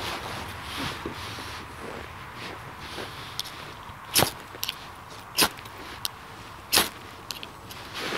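Fire steel (ferrocerium rod) scraped hard with a striker: three sharp scrapes about a second and a half apart in the second half, with lighter scrapes between, throwing sparks onto cotton tinder laced with fatwood to light a fire.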